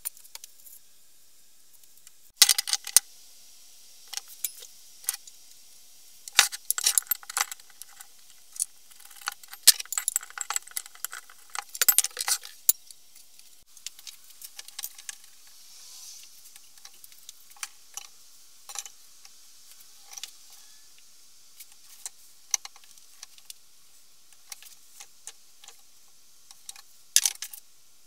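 Irregular bursts of light metallic clinking and rattling as a steel axe head is taken out of a bench vise and handled, busiest in the first half with another short burst near the end.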